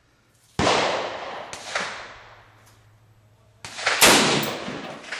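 Stag Arms AR-15 rifle fired: a loud crack about half a second in and another near four seconds, each with a long echoing tail, with fainter shots between them.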